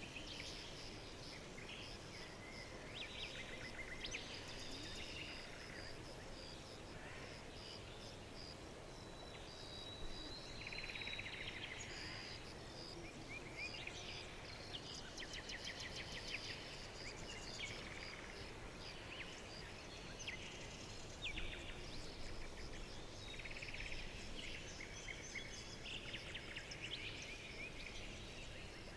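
Several songbirds chirping and trilling over a steady hiss of noise. A thin, high, held whistle sounds around ten seconds in.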